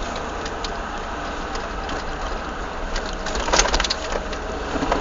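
Peugeot 306 Cabriolet 1.6i running with a steady low rumble, and about three and a half seconds in a short, quick run of sharp clacks. This is the clacking the owner reports when accelerating in a straight line.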